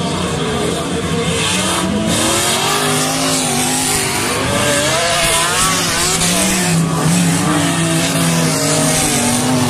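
A pack of stock cars racing past at close range, several engines revving up and down over one another.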